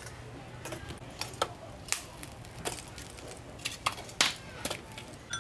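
Lumps of charcoal dropped into a clay charcoal stove: a run of sharp, irregular clinks and knocks, the loudest about four seconds in.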